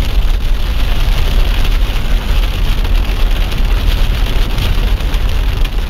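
Car driving on a wet dirt road, heard from inside the cabin: a steady low rumble of engine and tyres with rain hitting the windshield.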